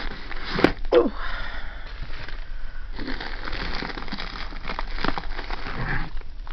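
Plastic bags crinkling and cardboard box flaps rustling as bags are handled and lifted out of a shipping box, with a couple of sharp clicks about half a second and a second in.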